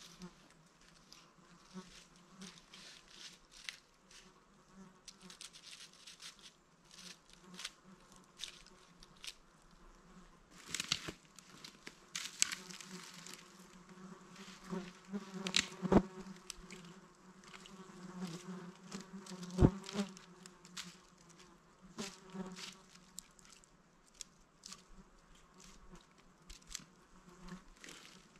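A flying insect buzzing close by, on and off, over faint rustling and small clicks. Two sharp clicks stand out above it, about halfway through and a few seconds later.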